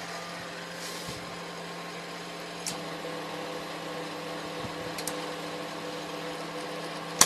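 Steady electrical hum from a homemade spot welder built on a microwave-oven transformer, with a few sharp clicks, the last and loudest near the end.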